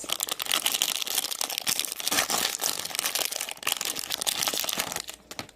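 Plastic toy packaging crinkling and tearing as it is handled and opened, a dense crackle that stops about five seconds in.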